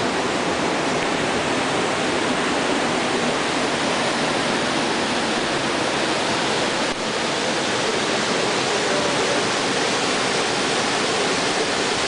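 Steady rush of water from a river cascade, a dense even roar that holds level throughout.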